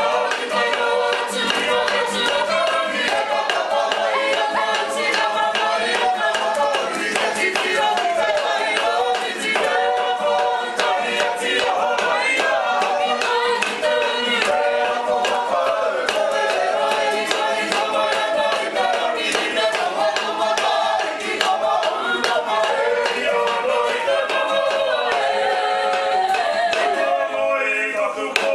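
A group of Māori performers, men and women, singing a waiata together in chorus, with a steady patter of sharp taps under the voices.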